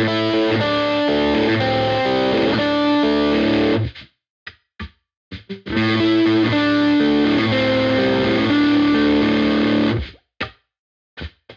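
Three-humbucker Epiphone Les Paul Black Beauty electric guitar played with heavy distortion, recorded through GarageBand. Two riffs of chords and single notes, each cut off sharply into silence: one in the first four seconds, the other from about five and a half to ten seconds in.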